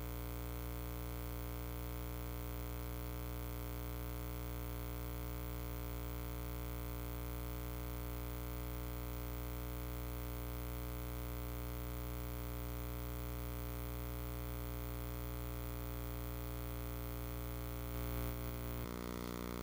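Steady low electrical hum with hiss, and no other sound. The hum shifts slightly near the end.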